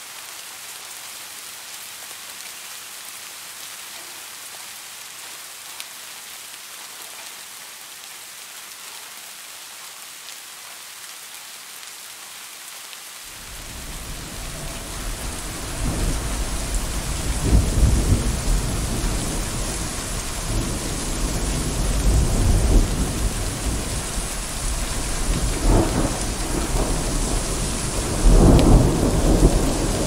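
Steady rain hiss. About halfway through, a deep rolling thunder rumble comes in and builds, swelling louder several times as the storm goes on.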